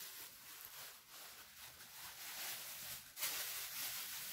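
Plastic wrap rustling and crinkling as it is pulled off and handled, louder for the last second or so.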